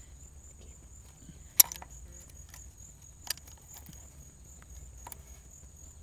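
Channel-lock pliers clicking against a camshaft actuator solenoid and the engine's valve cover while the solenoid is worked loose: one sharp metal click about a second and a half in and two fainter ones later, over a faint steady high whine.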